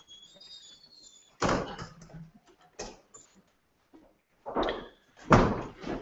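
Several separate knocks and bumps: one a little over a second in, one near three seconds, and two close together near the end. A short squeak comes near the start.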